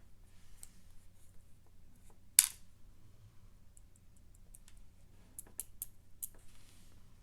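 Small sharp clicks and taps of a lock cylinder and small metal tools being handled while the lock is taken apart. There is one loud click about two and a half seconds in, and a quick cluster of clicks near the end.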